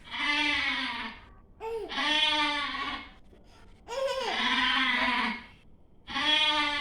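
A goat bleating four times, each call about a second long with a steady pitch.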